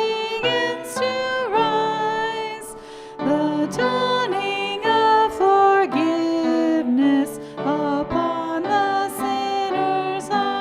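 Voices singing a slow hymn over instrumental accompaniment, long held notes moving step by step.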